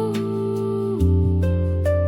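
AI-generated ambient music in a Korean traditional-fusion style: sustained pitched notes over a steady bass, with a chord change about a second in and light plucked notes.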